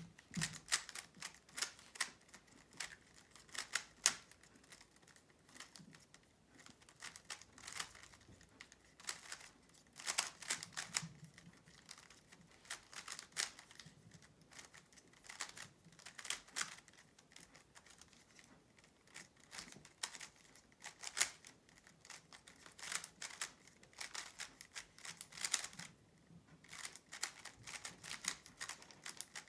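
GAN 356 XS magnetic speed cube being turned fast during a speed solve: bursts of rapid plastic clicking and clacking, with short pauses between bursts.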